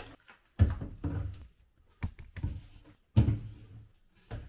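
A few dull knocks and thumps indoors: three sudden hits, the strongest about half a second in and about three seconds in, each dying away quickly.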